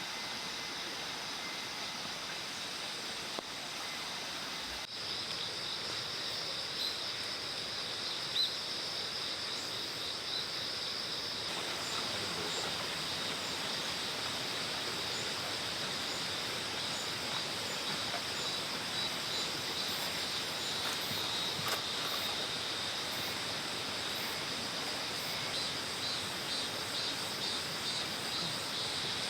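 Steady outdoor chorus of crickets and other insects, a continuous high-pitched trill, with a few faint clicks.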